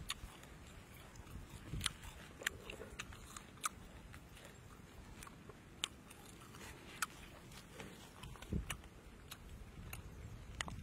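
Scattered crisp clicks and crackles as fresh lettuce leaves and dry roasted tamarind beetles are handled and wrapped together by hand.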